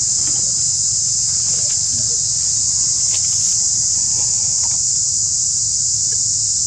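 A steady, high-pitched drone of insects, likely cicadas, running unbroken, over a steady low rumble.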